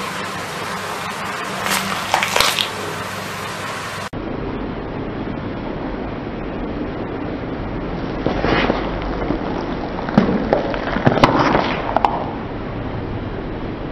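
Car tyre rolling slowly over gritty concrete and onto red chili peppers, with crackling and popping under the tyre: a short burst about two seconds in, then a longer run of crackles and sharp pops from about eight to twelve seconds in, over a steady low rumble.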